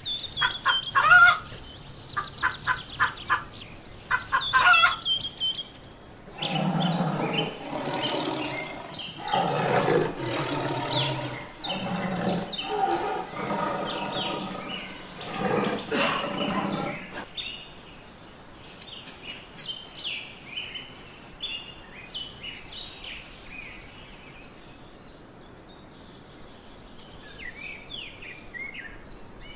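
A rooster calling in short, repeated high notes, then a tiger growling and roaring in a run of deep, rough calls for about ten seconds, then small birds chirping faintly.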